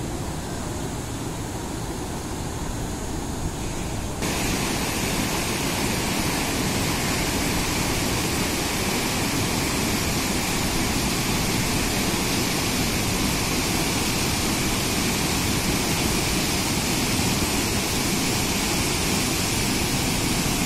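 Muddy floodwater of the Kaveri river rushing and churning through rapids, a steady rush of water noise. It turns louder and brighter about four seconds in.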